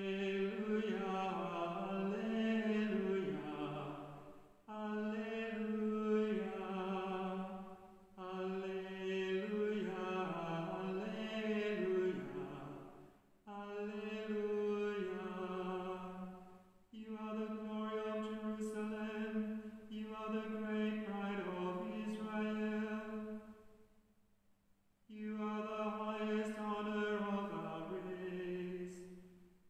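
A single voice singing unaccompanied chant, in sustained phrases of a few seconds with short pauses between them and a longer pause near the end.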